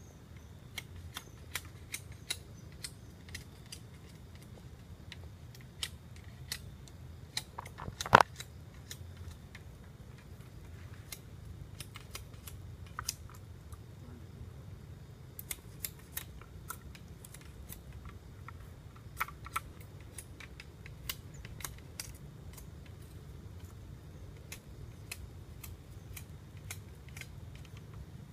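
Irregular sharp clicks and small snaps, one much louder snap about eight seconds in, over a low steady rumble.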